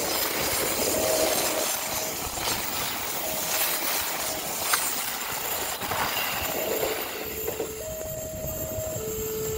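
A ten-car JR 205-series electric commuter train passes close by, its wheels and running gear making a dense rushing rumble on the rails. Under it and then plainly after about seven seconds, as the train clears, the level-crossing alarm sounds: an electronic two-tone signal stepping between a lower and a higher pitch about once a second.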